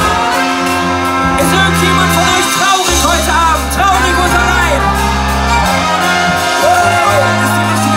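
Live brass band playing: a sousaphone holds long low bass notes under saxophone and trumpet chords, with bass drum and drum kit keeping the beat. A frontman's amplified vocals run over the band.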